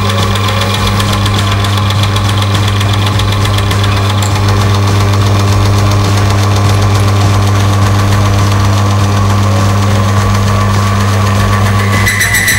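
Bench-top lubricant friction-test machine running, its electric motor spinning the test shaft against the loaded lever arm with only a residue of oil on it. It gives a loud, steady hum with a few higher steady tones and a rapid, even ticking, and cuts off shortly before the end.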